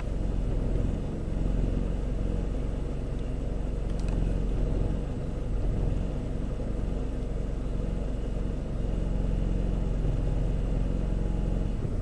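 2008 Pontiac G5's 2.2-litre Ecotec four-cylinder idling with a steady low drone that swells and sags slightly, heard from the cabin. Cylinder 4 is misfiring intermittently (a 'fishbite' misfire); the mechanic wonders whether a bad spot on a rotating exhaust valve and its seat is the cause.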